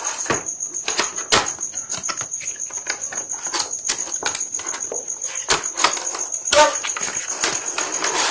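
Cardboard box and clear plastic clamshell packaging handled by hand during unboxing: the card slides, scrapes and rustles, with frequent sharp clicks and crinkles of the plastic. A steady high pulsing tone runs underneath.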